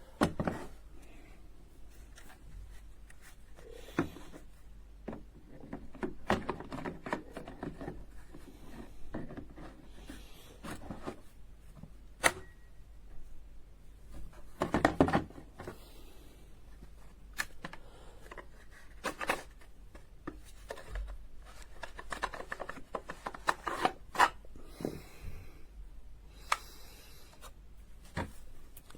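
Scattered handling noises: irregular clicks, knocks and rubbing or rustling, with no motor running.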